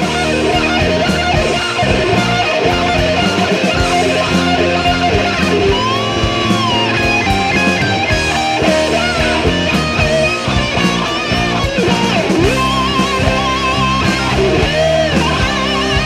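Rock music with electric guitar playing.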